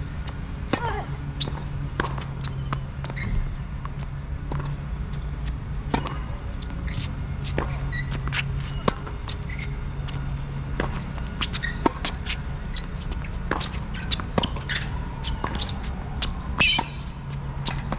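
Tennis balls struck by racquets and bouncing on a hard court during rallies: a run of sharp knocks at irregular intervals, some louder than others, over a steady low hum.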